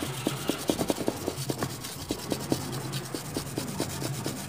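Rapid scratchy scrubbing strokes, several a second, on the solder side of a CRT TV's printed circuit board as it is cleaned with thinner after repair work.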